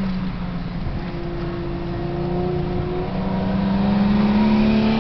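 Nissan Skyline R34 GT-R V-Spec II Nür's twin-turbo straight-six heard from inside the cabin, accelerating along the track: its pitch climbs slowly and it gets louder toward the end.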